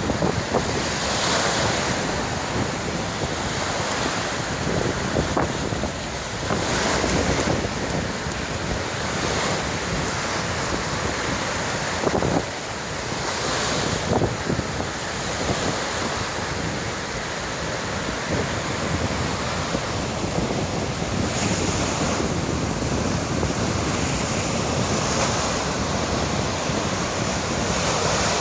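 Ocean surf breaking on the shore, wave after wave, under a steady rush of wind buffeting the microphone.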